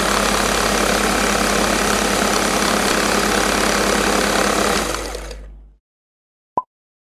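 Electric food processor running at full speed, its blade mixing chopped onion with breadcrumbs and spices. The motor runs steadily for about five seconds, then spins down and stops. A single short click comes near the end.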